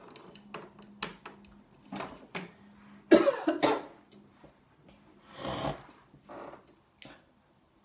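A person coughing: a loud double cough about three seconds in, another cough about five and a half seconds in, and a softer one after, amid small clicks and rustles.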